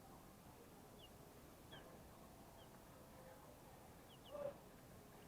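Young broiler chicks peeping faintly: short high cheeps every second or so, with one louder short call about four seconds in.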